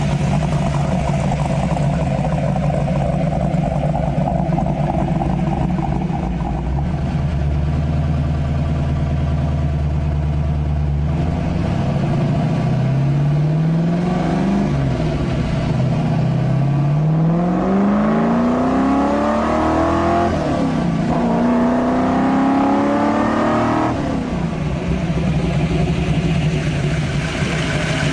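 Ford Mustang GT500 V8 engine running at a steady idle, then revving up about halfway through, its pitch climbing and dropping back four times, before settling back to idle near the end.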